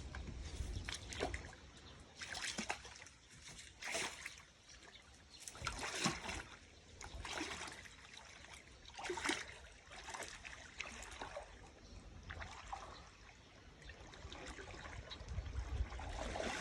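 Water trickling and splashing in irregular bursts, about one every second or two.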